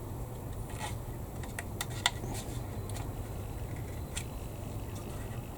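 Light, irregular clicks and taps of small hard objects being handled on a hobby bench, the sharpest about two seconds in, over a steady low hum.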